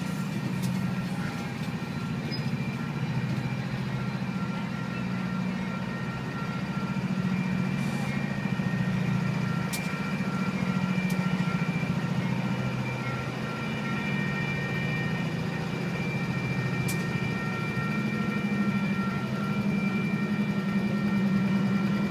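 Union Pacific diesel locomotives moving slowly through a grade crossing: a steady low engine drone with high ringing tones over it. A couple of faint sharp clicks come through in the second half.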